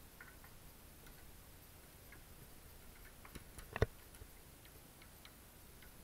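Light clicks and taps of metal door-lock hardware being handled while the lever handle and lock are taken apart. The clicks are scattered, with a short cluster of sharper knocks a little past three seconds in; the loudest comes just before four seconds.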